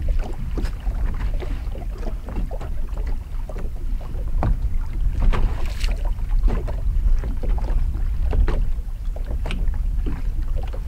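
Wind buffeting the microphone in a steady low rumble, with small waves lapping and slapping irregularly against the hull of a bass boat.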